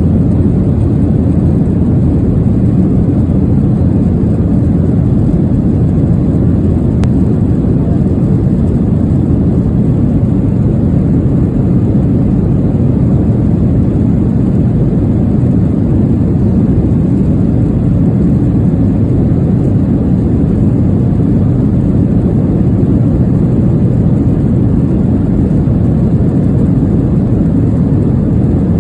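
Steady low rumble of an airplane cabin in flight, the even drone of engines and airflow, unchanging throughout.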